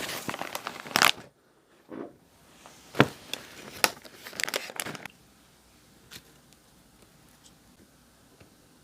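Crinkly plastic snack bag of Jagalchi crackers handled and torn open: a run of sharp crackles and rustles for about five seconds, loudest about a second in and again near three seconds. After that it is almost quiet, with one faint tick.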